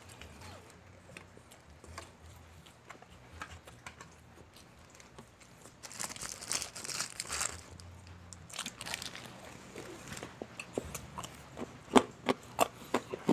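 Eating Jollibee Chickenjoy fried chicken from its paper wrapper: quiet mouth sounds and small clicks, the wrapper crinkling about six seconds in, then a quick run of sharp, crisp crunches near the end.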